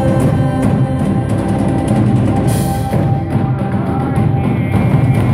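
Live music from a percussion ensemble: drum hits over sustained instrumental tones, with a cymbal crash about halfway through.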